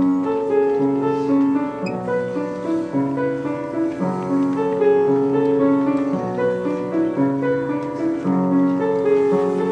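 Solo piano playing a slow song introduction of held notes and chords, the same phrase repeating about every four seconds, before any singing comes in.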